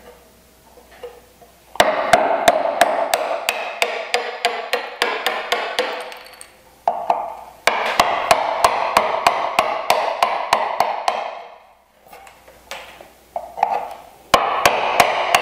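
Brass-headed mallet striking a wood chisel in quick taps, about four a second, chopping the waste out of a mortise for a bridle joint. The taps come in three runs with short pauses between them.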